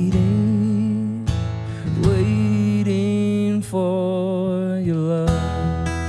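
A man singing long held notes with vibrato over a strummed acoustic guitar. The voice drops out a little after five seconds in, and the guitar plays on alone.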